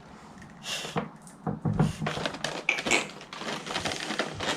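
Irregular plastic clicks, taps and rustling as an action figure and its packaging are handled.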